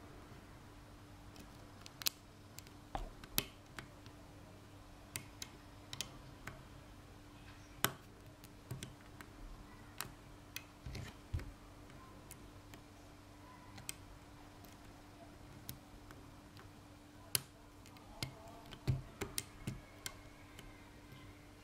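Light, irregular clicks and ticks of a lock pick and tension wrench working the pins inside a Blossom dimple padlock, over a faint steady hum.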